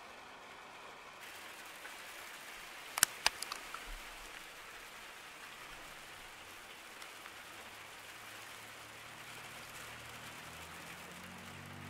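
Light rain beginning to fall, a soft steady hiss of drops. A few sharp taps about three seconds in are the loudest sounds, and a faint low hum rises in near the end.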